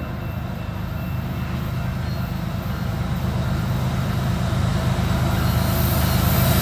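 Two diesel-electric freight locomotives approaching, their engines' low rumble growing steadily louder, with wheel-on-rail noise building near the end.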